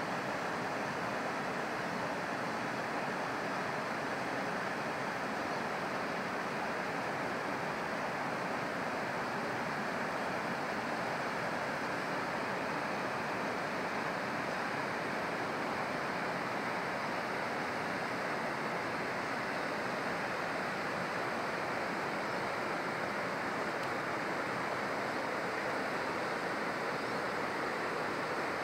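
Steady rushing of a mountain river running over a stony bed.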